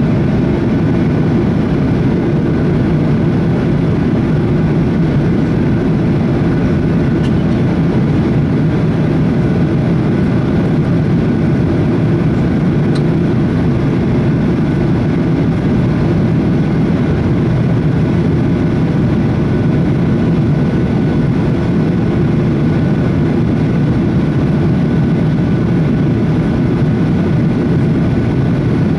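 Cabin noise inside a Boeing 737-800 on approach: its CFM56 turbofan engines and the airflow past the fuselage, heard as a steady low rumble with a faint steady whine above it.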